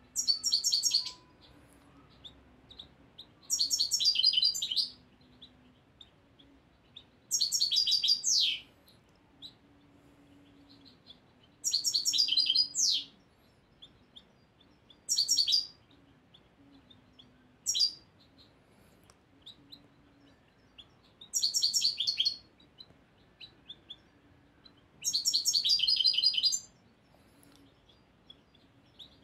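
Young European goldfinch of the year singing in short phrases, about eight in all, each a second or so of quick, high twittering with falling notes, with pauses of a few seconds between them. The song is a first-year bird's, still being settled from a training tape.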